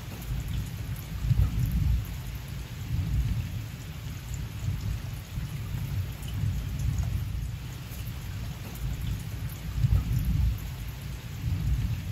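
Thunder rumbling low and rolling, swelling about a second and a half in and again near ten seconds in, with rain falling in the background.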